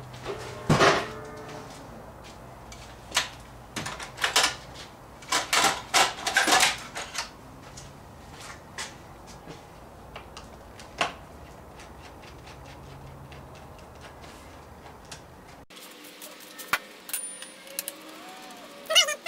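Hand tools and loose parts clicking, knocking and scraping in an ATV's under-seat compartment as parts are worked loose by hand. The clicks and knocks bunch together in the first several seconds and come more sparsely after that. A steady low hum behind them cuts off suddenly about three-quarters of the way through.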